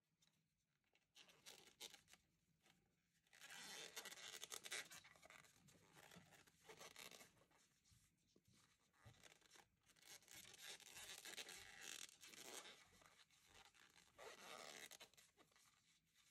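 Faint rustling and scraping of thick T-shirt yarn being pulled through stitches with a large crochet hook, in a few short spells.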